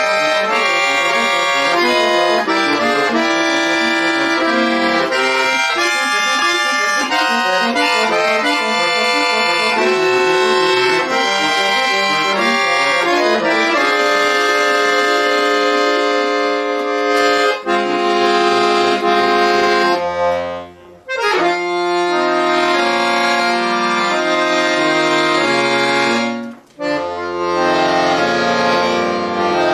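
Chromatic button accordion played solo: quick runs of notes through the first half, then held chords over deep bass notes, broken twice by short pauses in the second half.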